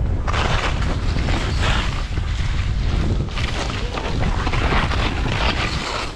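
Skis cutting through deep powder snow, a hiss of spraying snow that swells with each turn about every second or two, over a low rumble of wind buffeting the microphone.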